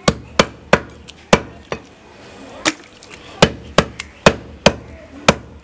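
Butcher's cleaver chopping goat meat on a wooden chopping block: a run of sharp chops, about two a second, with a short break a little before halfway.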